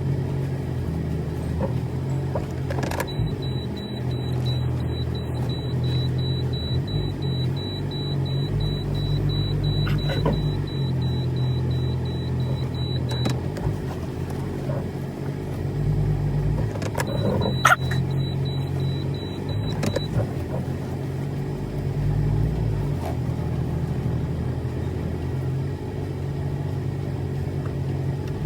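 Car engine running steadily, with a few sharp clicks, the loudest about two-thirds of the way through, and a faint high tone that comes and goes.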